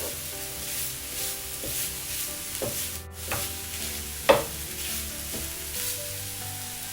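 Ripe nendran banana pieces and grated coconut sizzling in ghee in a pan while being stirred, with a few scrapes and knocks of the spoon against the pan, the loudest a little past four seconds in.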